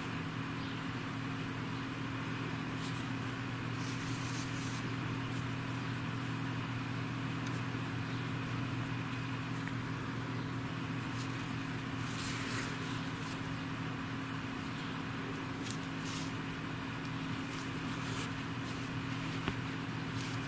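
Steady low hum made of several steady low tones, with faint brief rustles a few times as cotton yarn is drawn through the crocheted cloth with a darning needle.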